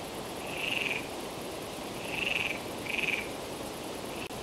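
Frogs croaking: three short high-pitched calls, each about half a second long, the last two close together, over a faint steady background hiss.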